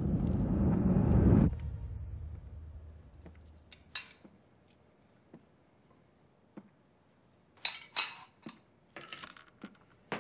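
A low swelling whoosh that cuts off suddenly about one and a half seconds in, then glasses, plates and cutlery clinking and knocking as a dinner table is cleared, in scattered clinks with a quick cluster near the end.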